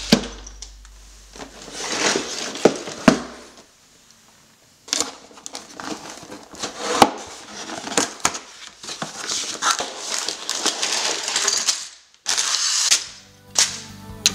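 A cardboard LEGO set box being torn open by hand and its plastic bags of pieces crinkling and rattling: a run of crackling, tearing and clicking handling noise, with a short lull about four seconds in and a brief break near the end.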